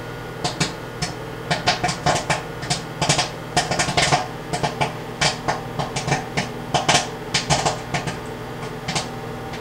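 Popcorn popping in a Chef'n PopTop popper inside a running microwave oven: rapid, irregular pops, several a second, at full pace, over the microwave's steady hum.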